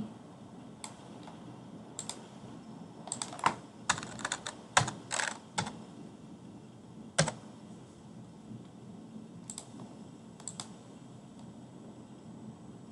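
Computer keyboard keystrokes: a quick cluster of taps about three to six seconds in, with a few single taps before and after.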